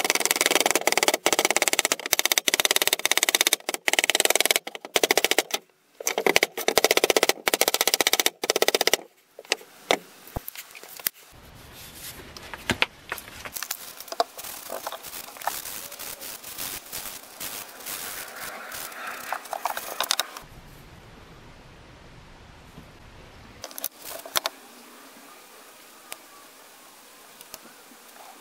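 A steel machete blade shaving a block of wood in quick, rasping strokes for about nine seconds. Then come quieter clicks and rustles of the tool and a plastic bottle being handled.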